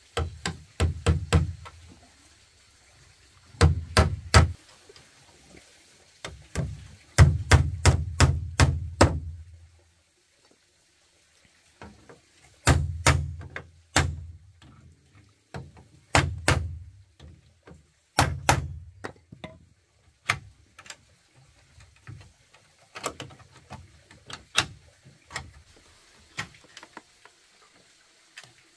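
Hammer blows on wood, struck in quick runs of several blows with short pauses between, as when nailing boards together.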